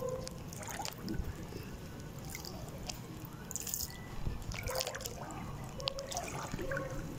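Shallow floodwater lapping and trickling, with scattered small drips and splashes.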